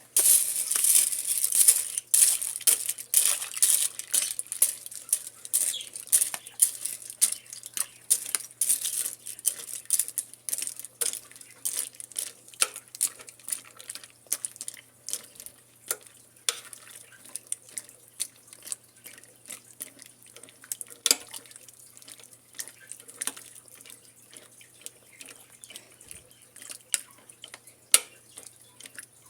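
Dry egg noodles being tipped from their plastic bag into a pot: the bag crinkling and rustling and the noodles clicking against each other and the pot. It is busiest in the first ten seconds and thins to scattered clicks after.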